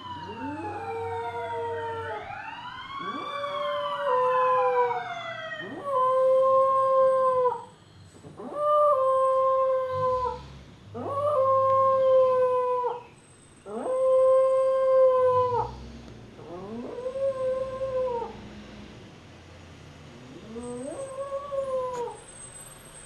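Small white dog howling in answer to a siren: about eight long howls with short pauses between, each sliding up at the start, holding level, then dropping off. The siren's falling wail sounds under the first few howls and fades out about six seconds in.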